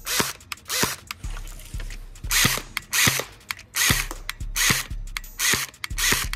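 Umarex HK 416 low-power electric airsoft rifle firing single shots in quick succession, about ten in all. Each shot is a short whir of the gearbox motor spinning up and cycling the piston, one roughly every half to two-thirds of a second.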